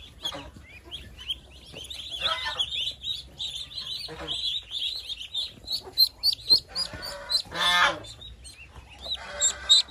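A crowd of ducklings peeping continuously in quick high chirps while being caught by hand, with a few louder, harsher calls among them, the loudest just before the end.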